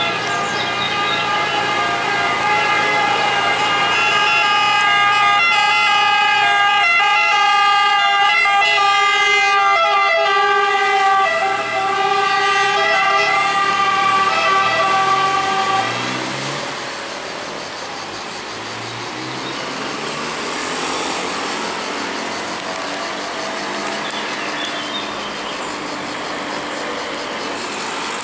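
Ambulance pneumatic siren sounding loud, steady horn tones over traffic, with a second emergency vehicle's siren alongside. About sixteen seconds in it drops away and grows fainter as the vehicles move off.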